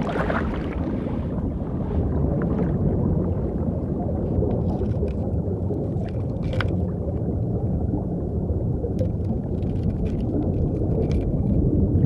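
Low, steady underwater rumble with a few faint clicks, one a little past halfway.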